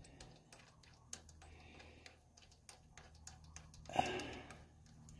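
Faint scattered clicks and taps of steel parts as a mounting pin and bracket are worked into the tractor's front-axle mount by hand, with one louder short sound about four seconds in.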